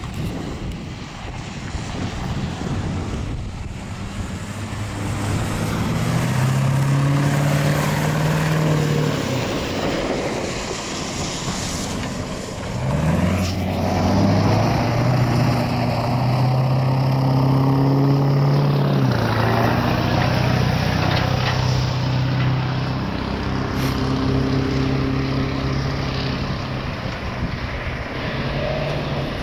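Road traffic with vehicle engines running close by. The engine note rises in pitch about halfway through, then holds steady for several seconds.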